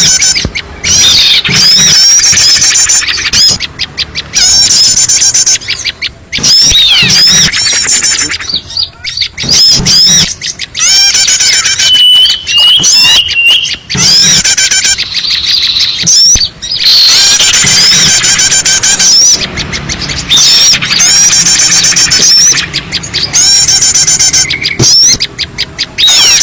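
Bird-lure recording of many small birds chirping and squawking at once, loud and dense, in fast repeated high notes and trills broken by short pauses.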